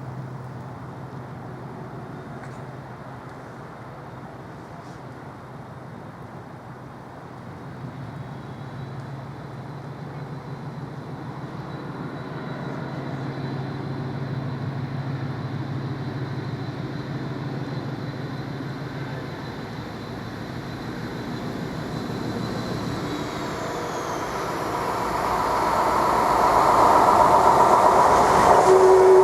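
Diesel-locomotive-hauled train approaching: a steady low engine hum that grows much louder over the last few seconds as the train nears.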